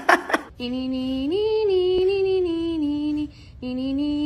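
Brief laughter, then a long drawn-out voice in two long notes. Each note glides up and then back down in pitch, with a short break between them.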